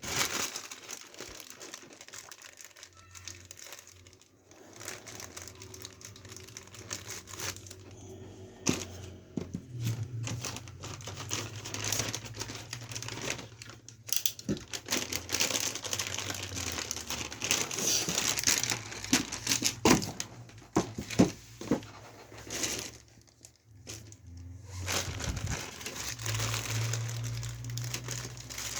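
Crinkling and rustling handling noise with many scattered clicks and knocks, as parts are handled and fitted during a PC build.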